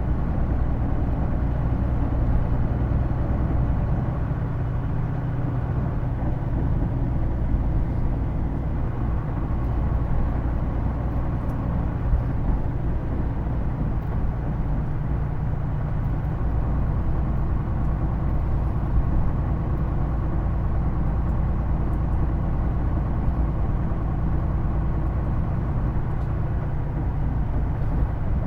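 Inside a Hino Blue Ribbon II PJ-KV234L1 city bus under way: a steady low engine drone with a held tone that steps up slightly in pitch about seven seconds in. The bus is noted for an odd transmission whine that sounds much like an automatic gearbox.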